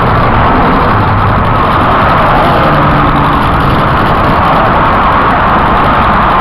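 Steady loud rushing noise from riding a bicycle at speed: wind on the handheld camcorder's microphone, mixed with road noise.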